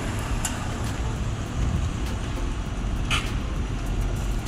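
Steady low background rumble, with a brief hiss about three seconds in.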